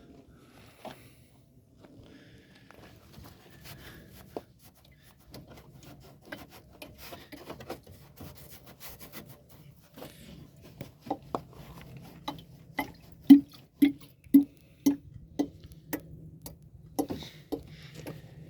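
Lada Granta's coolant system knocking: irregular sharp knocks, sparse at first, then louder and coming about twice a second past the middle, over a low steady hum. The knock comes from the coolant itself.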